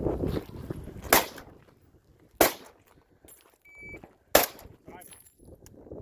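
Three gunshots, the second about a second and a quarter after the first and the third about two seconds after that.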